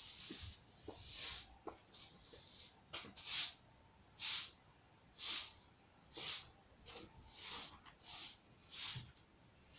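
Close breathing: short hissy breaths repeating about once a second, with a few faint ticks between them.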